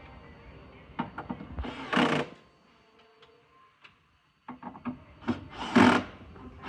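Wooden bed-frame panels and fittings being handled during assembly: scattered clicks and knocks, with two short, loud scraping rubs, one about two seconds in and one near the end.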